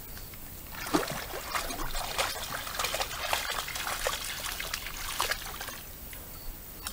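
Wild boar splashing through shallow pond water: a quick, irregular run of splashes that starts about a second in and thins out near the end.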